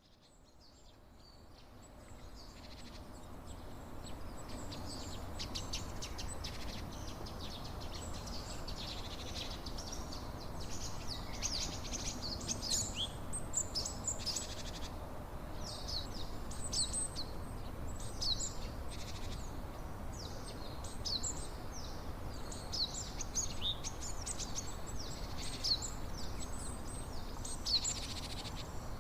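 Many small birds chirping and trilling over a steady low background rush. The sound fades in over the first few seconds.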